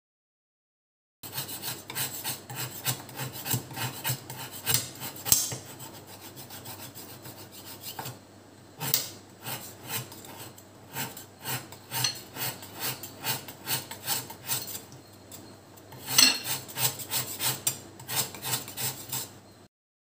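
Kitchen knife scraping and shaving a block of jaggery into crumbs, a fast run of rasping strokes with a couple of brief quieter pauses.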